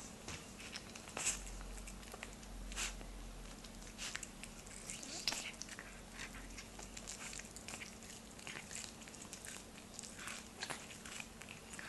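Cat biting and chewing kernels off an ear of corn on the cob, a run of irregular small crunches and wet clicks.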